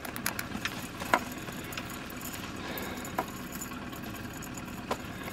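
Boat's outboard motor idling steadily, with a few sharp knocks about one, three and five seconds in.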